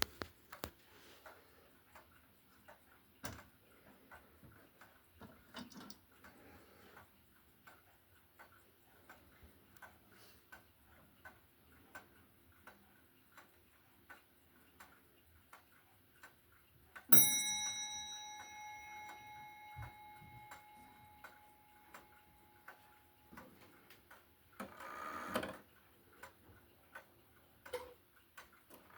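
Antique E.N. Welch regulator clock ticking steadily and faintly. About two-thirds of the way through it strikes once, a ringing note that fades over about five seconds. A short noise is heard near the end.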